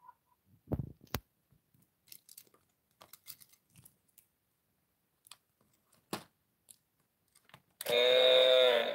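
Scattered light clicks and taps of plastic toys being handled, then near the end about a second of a loud electronic sound effect from a battery-powered toy hippo biting game as its mouth opens and lights up red.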